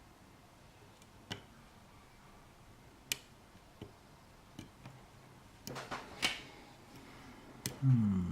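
Lock picks working the pins of a small Corbin padlock: sparse, sharp metal clicks a second or two apart, with a quick cluster of clicks about six seconds in as pins set. A brief hum from the picker near the end.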